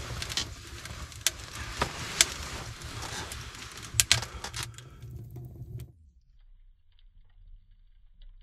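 Nylon sleeping bag rustling, with many sharp clicks, as a person settles onto a camp cot and pulls the bag over himself. About six seconds in the sound cuts off to near quiet with a few faint ticks.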